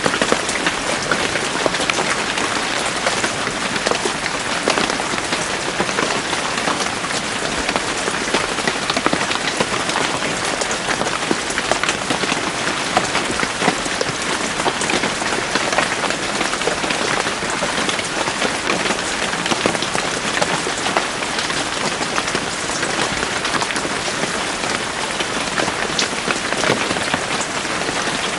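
Steady rain falling in a forest: a dense hiss with many individual drops pattering on leaves and surfaces.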